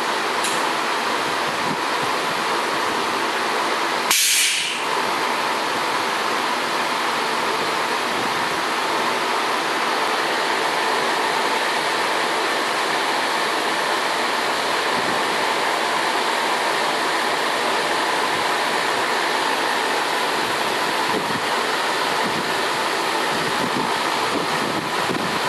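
Haas HRT 310 rotary table running, turning a tombstone fixture, heard as a steady mechanical hum with a faint whine. About four seconds in comes a short, sharp hiss of air.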